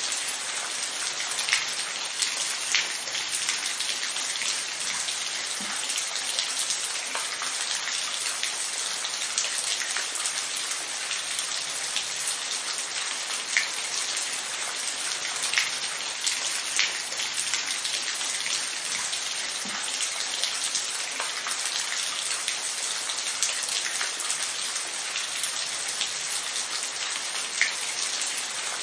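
Steady rain falling on a surface, an even hiss with scattered sharper drop ticks now and then.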